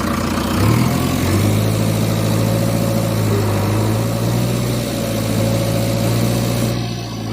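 Vehicle engine idling steadily, its pitch stepping up slightly about a second in and then holding.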